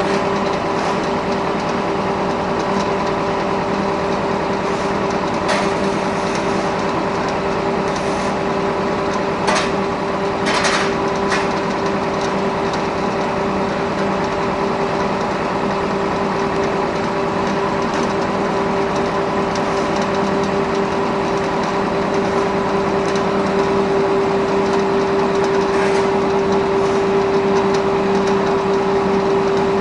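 Small wood sawdust pellet mill production line running: a loud, steady machine drone with a strong hum, and a few short knocks, several of them clustered about ten seconds in.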